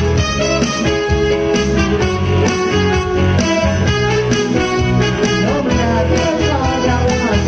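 Small Chinese-instrument ensemble of guzheng, erhu and electronic keyboard playing an upbeat tune over a steady bass and drum beat, with sliding notes near the end.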